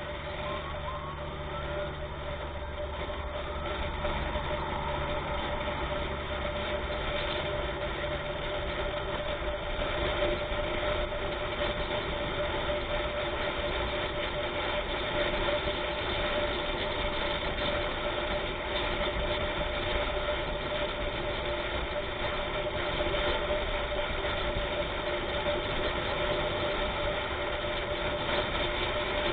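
Vehicle engine running steadily on the move, with a steady drone and road noise that grows a little louder over the first few seconds.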